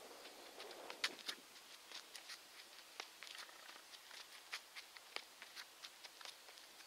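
Sneakers scuffing and tapping on asphalt in quick, skipping footwork steps: a string of faint short scuffs, a few a second, with the loudest about a second in.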